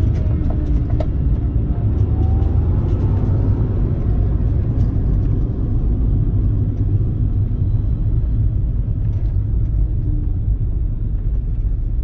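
Cabin noise of a 1995 Honda Civic Si hatchback on the move: its 1.6-litre four-cylinder engine and the tyres on the road make a steady low rumble inside the car.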